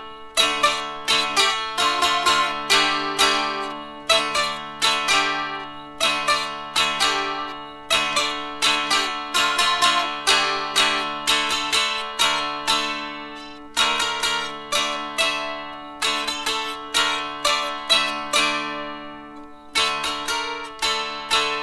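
Fretted dulcimer (drone zither) strummed, playing a melody over steady sustained drone strings in phrases of quick plucked notes.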